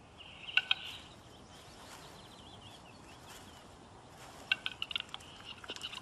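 Western capercaillie cock's display song: runs of dry clicks, one about half a second in and another from about four and a half seconds, with a faint wavering call between them.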